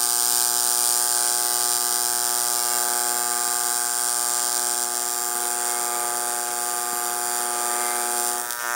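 AC TIG welding arc on aluminum: a steady, even buzz that holds one pitch throughout and cuts off abruptly near the end.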